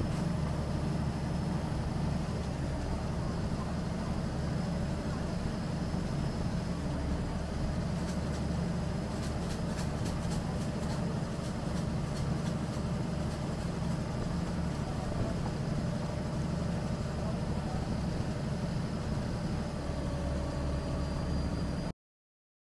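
Steady low rumble of vehicle noise with a faint even hum over it and a few faint ticks in the middle; it cuts off suddenly near the end.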